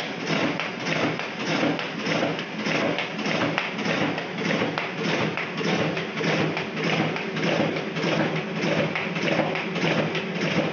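RISO CV1200 digital duplicator running a print job: a steady run of thumps, about two a second, as sheets feed through.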